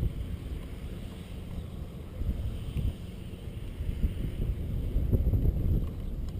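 Storm wind buffeting the camera's microphone: a choppy, gusting low rumble that swells and eases, louder about two seconds in and again near the end.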